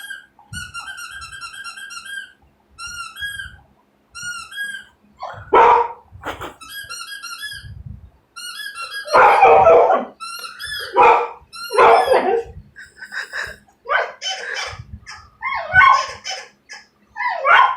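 Rapid, high-pitched squeaks of a squeaky dog toy playing from a TV, answered by a dog barking: a first bark about five seconds in, then repeated barks through the second half while the squeaking fades out.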